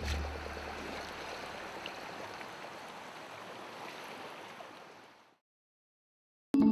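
Open-sea water ambience, waves lapping and sloshing, with a low rumble in the first second; it fades out about five seconds in. After a second of silence, mallet-percussion music starts right at the end.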